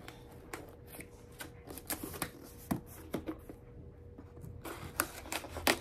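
A cardboard shipping box being cut open with a thin blade and handled: irregular scraping, tapping and rustling, with a few sharper clicks near the end.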